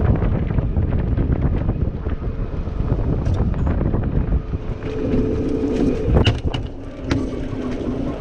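Golf cart driving along a rough dirt track: a low rumble with wind buffeting the microphone, and sharp knocks and rattles as it goes over bumps. A steady hum comes in about five seconds in.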